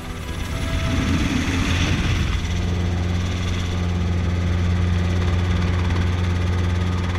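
Light helicopter in flight, heard from inside its doorless cabin: a steady, even drone of engine and rotors.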